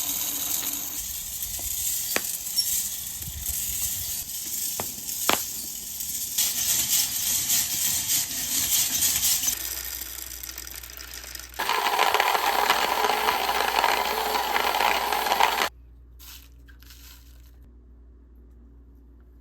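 Coffee beans roasting over a campfire: a steady hiss with a few sharp pops. About twelve seconds in it turns louder and rougher, then it cuts off suddenly a few seconds later, leaving only a faint low background.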